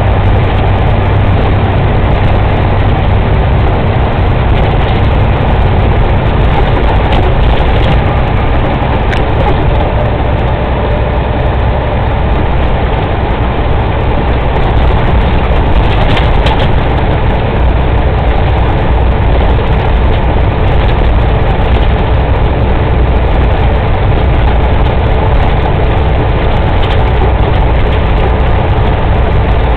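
Semi truck's diesel engine and tyre noise heard from inside the cab at highway speed: a loud, steady drone whose deep hum drops lower in pitch a few seconds in.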